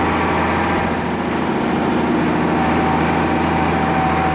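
Mercedes Unimog U1700L truck's diesel engine running steadily under way, a constant low hum with no change in pace.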